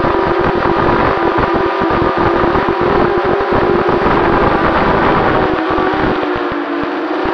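Eachine Falcon 250 quadcopter's brushless motors and propellers whining steadily in fast forward flight, heard from on board with choppy wind rumble on the microphone; the pitch wavers and sags slightly near the end.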